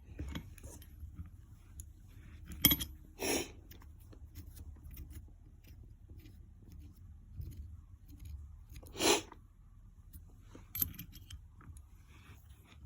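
Scattered clicks and knocks of hand tools and small metal parts being handled, with a sharp clink about two and a half seconds in and a short rushing noise about nine seconds in.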